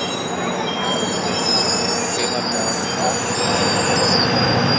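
GO Transit bilevel passenger coaches rolling past, their wheels squealing in several thin, high tones over a steady rumble of wheels on the rails.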